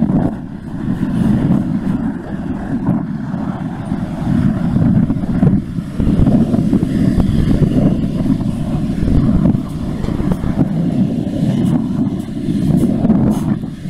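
Wind buffeting the camera microphone: a loud, gusting low rumble that swells and eases every few seconds.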